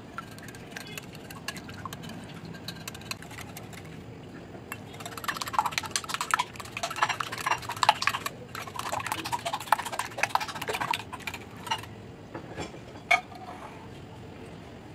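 Wire whisk beating eggs in a glass bowl: light ticking at first, then fast clicking and rattling of the wires against the glass from about five seconds in until about eleven, with a short break in the middle. A few separate clinks follow near the end.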